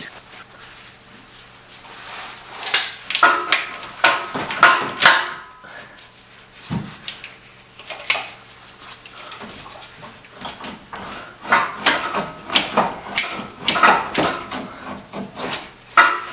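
Power-steering rack of a 1986 Mustang GT being wrenched loose by hand: irregular metallic clunks, scrapes and short squeaks as it is pulled to free the rag joint from the steering shaft, with one dull thump about seven seconds in. A low steady hum runs underneath.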